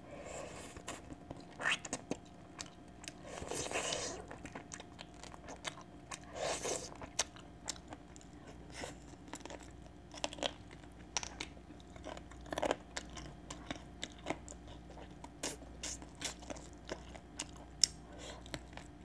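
Close-miked mouth sounds of a person biting and chewing boiled chicken leg meat torn off the bone: many short, sharp, wet clicks, with two longer noisy stretches about three and six seconds in.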